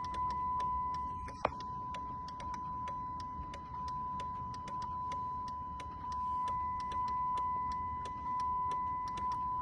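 A steady high electronic tone held without a break, with faint rapid uneven ticking and a low hum beneath it; one slightly louder click comes about a second and a half in.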